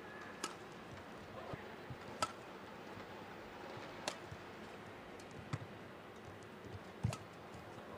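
Badminton rally: five sharp racket hits on the shuttlecock, spaced about one and a half to two seconds apart, the last one the loudest, over a faint steady arena background.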